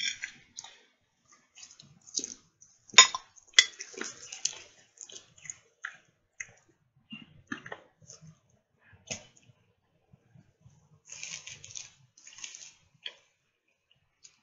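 A person chewing food close to the microphone, with irregular wet smacks and clicks, the loudest a few seconds in.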